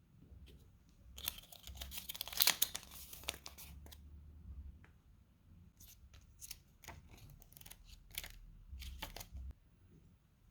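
Product packaging being torn open and handled: a burst of tearing and crinkling starts about a second in and lasts a few seconds, followed by scattered crinkles and clicks.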